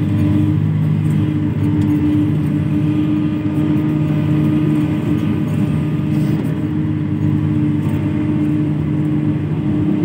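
Komatsu PC300 hydraulic excavator's diesel engine running with a steady drone while the machine digs soil with its bucket.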